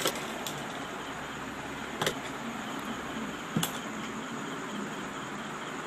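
A sewing machine stops stitching, then a steady hiss is heard with a few sharp clicks, the loudest about two seconds and three and a half seconds in, as the fabric is shifted and handled at the machine.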